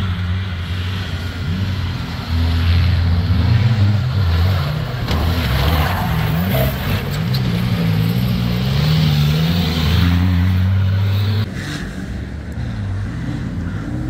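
Off-road competition vehicle engines revving hard under load, the pitch rising and falling unevenly. About eleven and a half seconds in the sound drops to a lower level.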